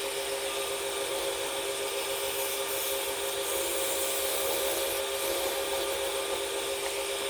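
Wood lathe running with a steady hum while a turning tool scrapes and cuts the spinning wooden blank, a continuous rubbing, rasping sound.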